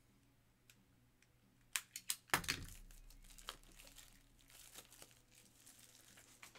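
Trading-card packaging being handled on a table, crinkling and rustling. A few sharp clicks come just before two seconds in, then a louder thump, then steady crinkling.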